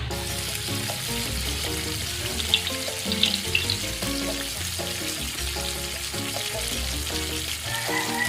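Oil sizzling steadily as food deep-fries, with background music playing over it.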